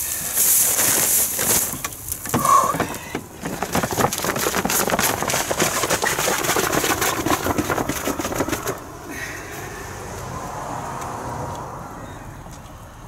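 Dry power-raked grass and thatch debris rustling and crackling as it is tipped out of a zero-turn mower's bagger bag into a plastic bin. A short high tone sounds about two and a half seconds in, and the crackling dies down about nine seconds in.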